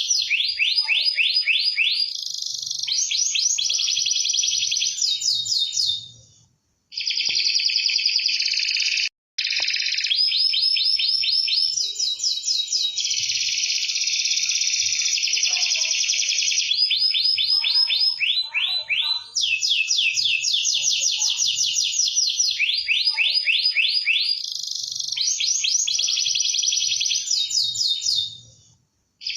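Domestic canary singing: long, rapid trills, one fast rolled phrase after another, high-pitched and loud. The song cuts out briefly about a quarter of the way in and again just before the end.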